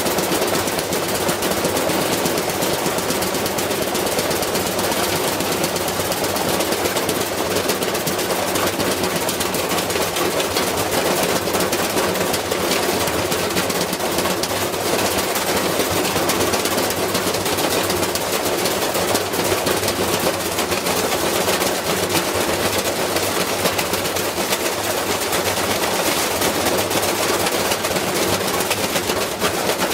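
Washing machine spinning with a heavy object loose in its drum, hammering it in a rapid, continuous barrage of bangs over the steady hum of the motor.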